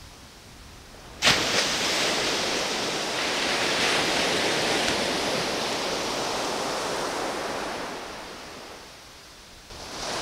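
Surf on the beach: an even rushing noise that starts suddenly with a click about a second in, holds steady, and fades away near the end.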